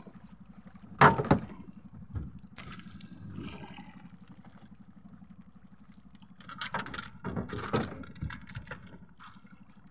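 Knocks and scrapes of gear being handled on a small fishing boat: one loud sharp knock about a second in, then a cluster of knocks and scrapes a few seconds later, over a faint low steady hum.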